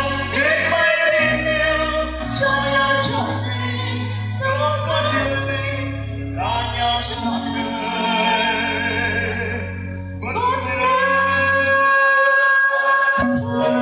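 A Vietnamese love song sung live through a microphone over instrumental accompaniment: a singer holds notes with vibrato in phrases a second or two long, over steady low bass notes.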